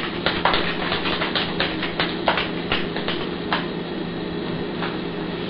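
Utensil clicking and knocking against a small saucepan as instant mashed potatoes are stirred. The clicks come quickly, about four a second, for the first three and a half seconds, then once more near the end, over a steady hum.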